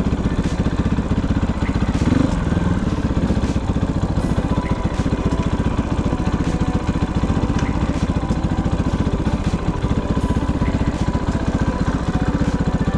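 Single-cylinder engine of a Kovi 450i Pro enduro motorcycle running steadily, its firing pulses coming fast and even.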